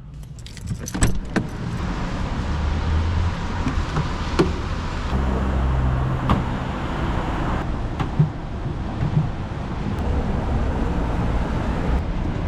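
A diesel car running, a steady noise with a low rumble, with a cluster of clicks and knocks in the first second or so and a few more scattered through.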